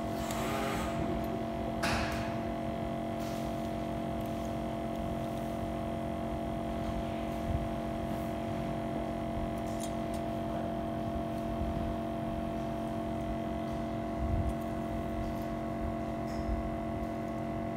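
Steady electrical hum of running bench equipment, several fixed tones held without change, with a few brief handling noises near the start and a couple of faint knocks later on.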